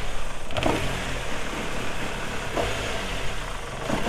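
Motor vehicle running steadily with a low engine hum, with a few short whooshes.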